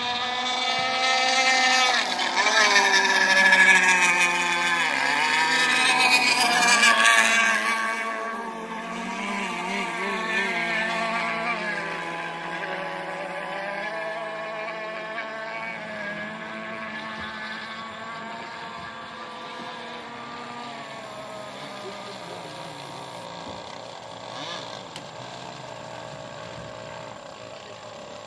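Radio-controlled racing boats running flat out, their motors whining at a high pitch. The sound is loudest a few seconds in, where the pitch bends and falls as a boat goes by, then it grows fainter as the boats move off.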